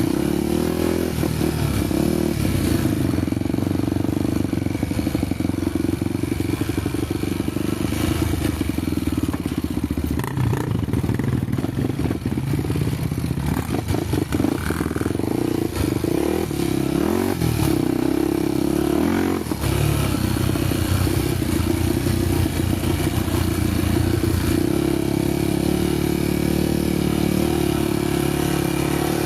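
Trail motorcycle engine running under way, with the revs rising and falling between about 10 and 20 seconds in over clatter from the rough ground, and holding steadier near the end.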